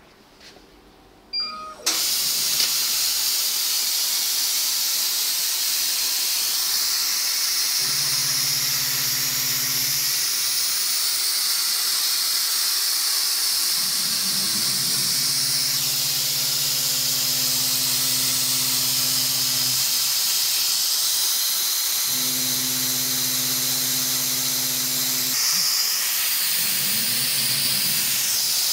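Laser cutting machine cutting thin steel sheet. Assist gas hisses loudly and steadily from the cutting nozzle, switching on abruptly about two seconds in. A low machine hum comes and goes several times.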